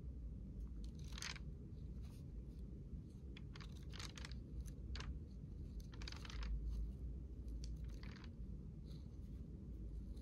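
Thin pages of a small old pocket book being flipped through by hand: faint, short papery rustles and flicks in irregular clusters, over a low steady hum.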